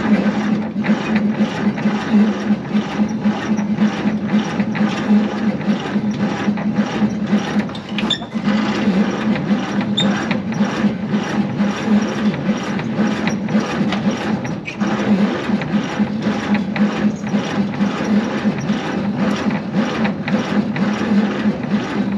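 The 216 inline-six of a 1948 Chevy 3100 turns over slowly on its starter with a steady, even beat of about two to three pulses a second, and it never fires. The engine has no spark from the coil because its points are dirty.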